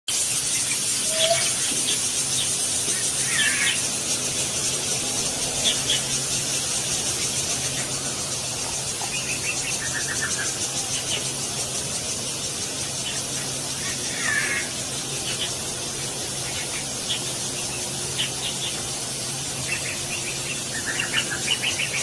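Weaver birds calling: short, scratchy chirps and chatters every second or two over a steady high hiss.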